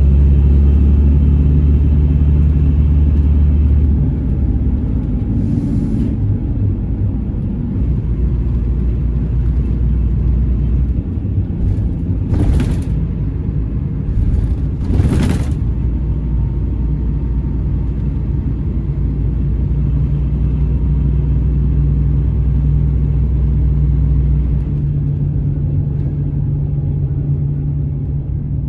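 Scania Irizar Intercentury 12.32 coach's diesel engine running, heard from inside the passenger cabin while under way. Its low drone drops and picks up again a few times as the coach slows and pulls away, with a few short hisses in the middle.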